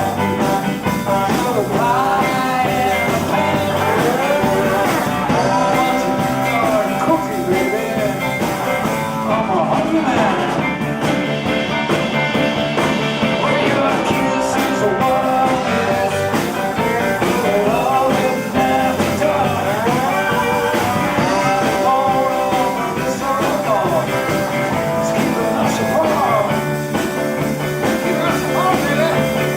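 Live blues band playing an instrumental passage: a lead line bending up and down in pitch over a steady rhythm section.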